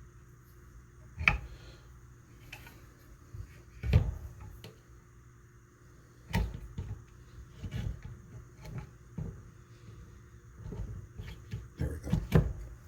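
Scattered knocks and clunks of a Winchester Model 52's metal barreled action and wooden stock being handled and fitted together on the bench, the loudest about four seconds in.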